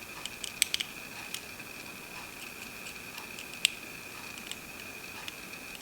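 Scattered small clicks and taps as bare wires are held against a 9-volt battery, the loudest about three and a half seconds in, over a steady faint high whine. There is no motor sound: the humidifier's fan motor does not spin on the battery, so the motor is dead.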